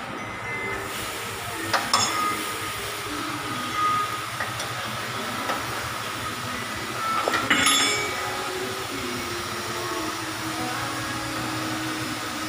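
Steel tools and parts clinking in a workshop: a few sharp metallic taps, the clearest about two seconds and seven and a half seconds in, over steady background noise.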